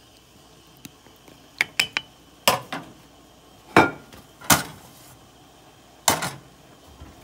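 Stainless steel pot of potatoes in water being handled: about ten sharp metallic knocks and clanks in irregular clusters, some ringing briefly, the loudest a little under four seconds in.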